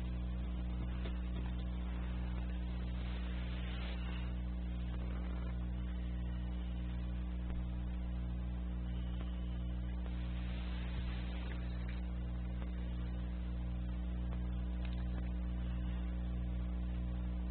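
Steady low electrical hum with a faint even pulse, about one and a half beats a second.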